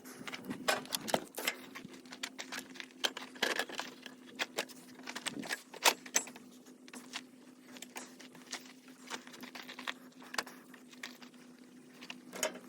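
Irregular metal clinks and knocks as a DeWalt table saw part and its hardware are handled and fitted into place, over a steady low hum.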